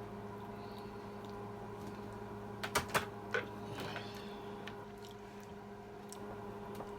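A few sharp clicks of tableware, about three seconds in, over a steady low electrical hum.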